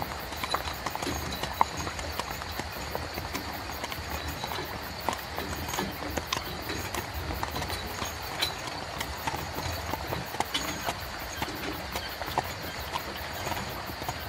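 Horse hooves clip-clopping at a walk, drawing a carriage, with irregular knocks over a steady low rumble.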